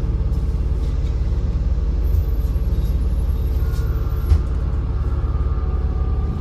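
MAZ-203 city bus engine running, heard from inside the passenger cabin as a steady low drone, with a single knock about four seconds in.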